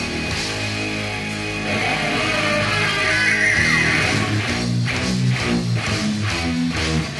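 Rock music with guitar; a steady drum beat and quicker chord changes come in about halfway through.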